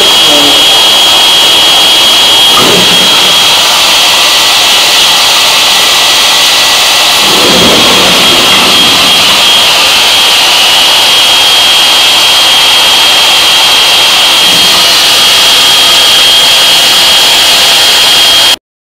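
Loud, steady hiss with a thin high-pitched whine held through it, and a couple of faint low sounds about 3 and 8 seconds in; it cuts off abruptly near the end.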